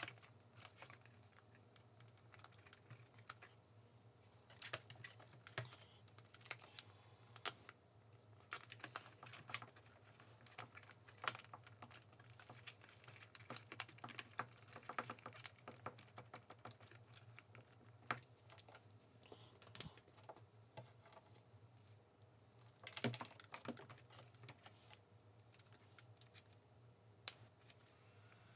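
Faint scattered clicks, taps and rustles of hands handling wires and plugging connectors inside a 3D-printed plastic combat-robot chassis, over a steady low hum.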